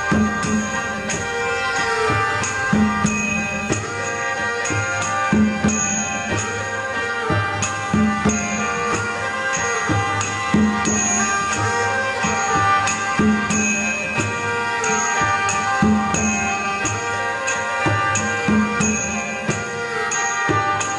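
Background music: an instrumental with a steady percussion beat under sustained melodic lines.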